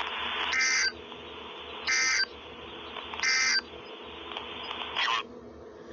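Emergency Alert System end-of-message signal: three short warbling digital data bursts about a second and a half apart, then a fourth, shorter burst near the end, over steady radio static. The bursts mark the end of the severe thunderstorm warning message.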